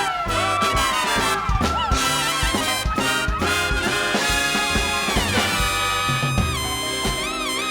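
Orchestral swing music with brass, trumpets and trombones playing a sustained passage that ends on a held note.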